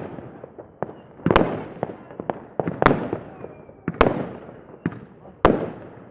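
Fireworks going off: four loud bangs about a second and a half apart, each echoing away, with smaller cracks and pops between them.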